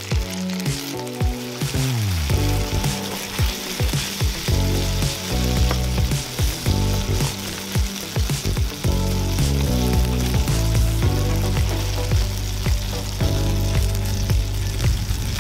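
Okonomiyaki and its sauce sizzling in a frying pan, under background music with bass notes and a steady beat; the music slides down in pitch about a second in.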